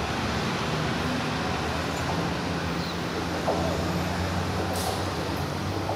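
São Paulo Metro Frota P train approaching along an elevated viaduct, its steady running hum rising out of a constant city traffic rumble.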